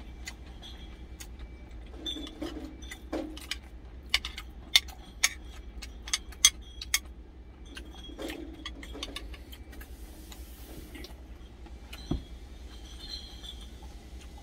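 Metal spoon clinking and scraping against a glass food container, with a quick run of sharp clinks in the middle, over a steady low hum.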